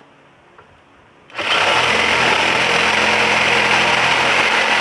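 Black & Decker 520 W pendulum jigsaw switched on about a second in, then running steadily as it cuts through a 2x2 hardwood board with orbital (pendulum) action on, a setting that cuts faster but leaves a rougher cut.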